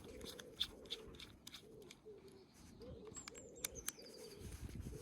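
Pigeons or doves cooing over and over in the background, with a small bird chirping briefly about three seconds in. Faint clicks sound throughout.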